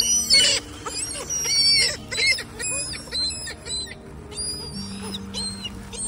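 A flock of gulls calling: many short, high squealing calls overlapping several times a second, densest in the first two seconds and thinning toward the end.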